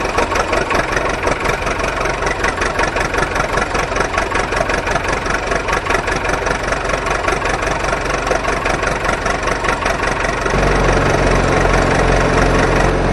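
Engine running with a fast, even beat, then about ten seconds in changing to a steadier, deeper idle. It starts and stops abruptly, like an engine sound effect laid over the footage.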